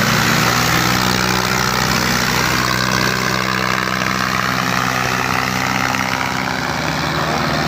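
Two diesel tractor engines, a Farmtrac and a John Deere, running hard under full load as they pull against each other in a tractor tug-of-war. The engine note is loud and steady, with black smoke pouring from the exhausts.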